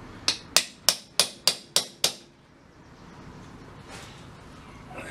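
Seven quick hammer taps, about three a second, driving a gumball machine part into place while it is held in a vise.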